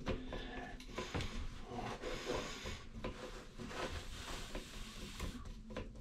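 Phillips screwdriver unscrewing a long plastic toilet-seat hinge bolt: faint rubbing and many small irregular clicks of plastic as it is turned.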